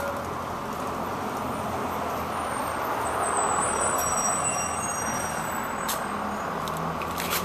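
Street traffic noise: a steady hiss of passing vehicles and tyres on the road, swelling slightly about three to four seconds in, with a low engine hum near the end.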